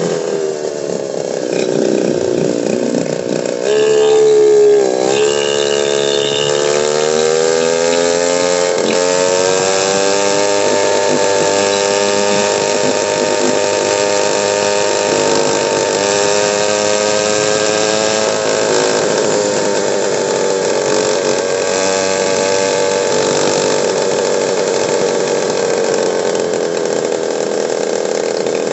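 Motorcycle engine running under way: the revs dip sharply about five seconds in, as at a gear change, then climb steadily for several seconds, hold, and ease off lower after about twenty seconds.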